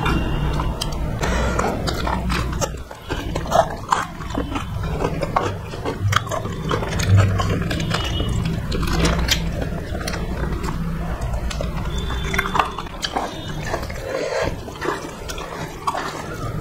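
Close-miked chewing, biting and wet smacking of people eating curry and rice by hand, with many short clicks and smacks, over a steady low hum.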